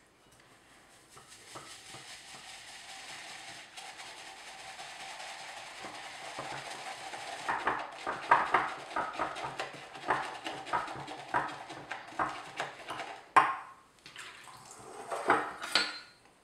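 Shaving brush swirled in a ceramic mug, working up lather. It starts as a steady wet swishing, then turns into quick strokes at about two or three a second, with one sharp knock against the mug near the end.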